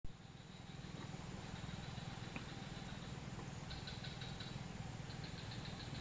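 Faint, steady low hum like a distant engine running. A light click comes a little before halfway. Two short runs of rapid, high-pitched chips follow, one just after halfway and one near the end.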